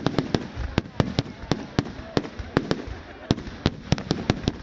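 Fireworks exploding in a rapid, irregular string of sharp bangs, several a second.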